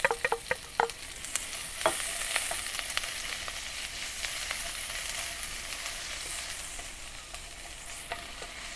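Sliced onion sizzling in hot oil in a wok as it is sautéed, with scrapes and taps of a wooden spatula stirring it. In the first second a few ringing metallic clinks come from the steel bowl as the onion is tipped into the wok, and the sizzle settles into a steady hiss about two seconds in.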